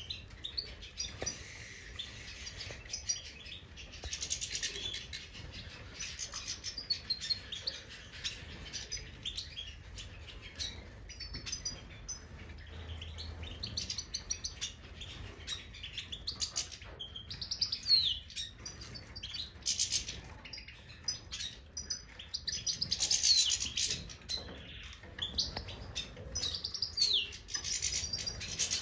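European goldfinches of the large 'Major' race twittering and chirping continuously, with quick call notes and short downward-sliding notes, mixed with scattered clicks.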